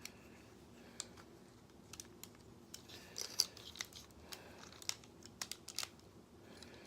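Plastic parts of a Transformers Combiner Wars Sky Lynx figure being handled and shifted during transformation, with irregular small clicks and snaps that come thickest in the middle.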